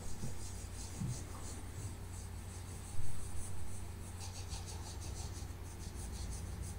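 Solvent-dampened cotton swab rubbing across the varnished surface of an oil painting in faint, quick strokes that become more regular about four seconds in, with one soft bump about three seconds in. The swab is dissolving an old discoloured dammar varnish.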